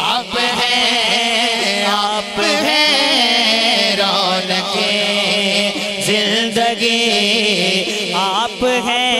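A naat sung by a man through a microphone and PA: long, wavering melismatic phrases from a solo voice over a steady low drone.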